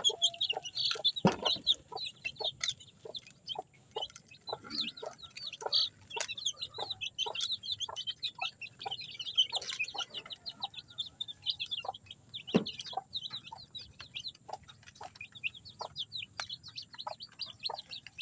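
A flock of young chicks peeping rapidly and continuously, with scattered clicks and two louder knocks, one about a second in and one about two-thirds of the way through.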